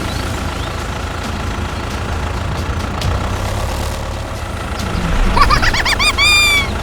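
Vehicle engine running steadily with a low rumble. About five seconds in, a quick run of high squeals rises and falls several times.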